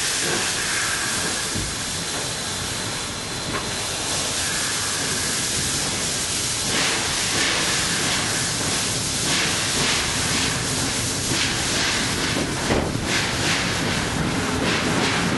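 Steam train running, heard from an open carriage window: a steady hiss of steam and rushing air, with a rhythm of short beats coming in about seven seconds in and growing stronger.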